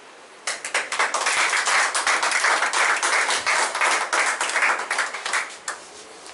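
A group of people clapping in applause. It starts suddenly about half a second in, stays dense and loud, and dies away with a few last claps just before the end.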